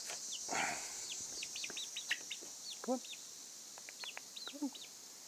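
Young chickens peeping over and over in short, high calls, with a couple of lower squawks about three seconds and four and a half seconds in.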